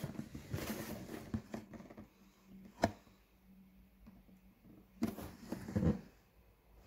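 Faint rustling and tapping of a cardboard shoe box being handled, with one sharp click about three seconds in.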